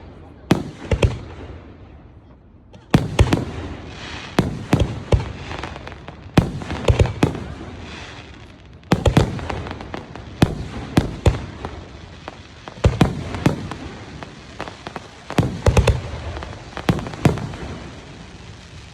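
Aerial fireworks exploding: sharp bangs in quick groups of two to four, a new group every two seconds or so, with a crackling haze lingering between the bursts.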